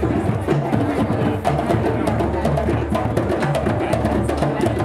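Drum circle: many hand drums and percussion instruments played together in a dense, driving rhythm of sharp strikes over a low drum pulse.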